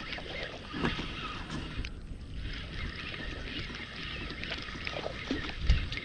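Spinning reel cranked steadily to retrieve a frog lure, its gears and line making a faint continuous whirr with small ticks. There is a louder low thump near the end.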